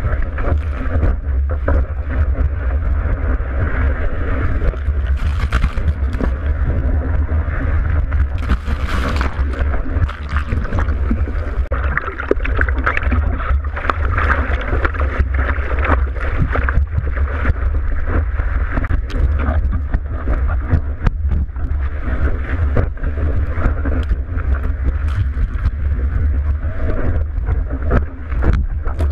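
Surf and rushing water heard through a board-mounted GoPro Hero 3's waterproof housing: a steady, muffled low rumble, with short splashes and wind buffeting on the microphone.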